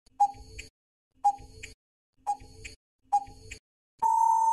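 Quiz countdown-timer sound effect: a clock ticking about once a second, each tick followed by a lighter tock, then a steady beep starting about four seconds in that marks the end of the countdown.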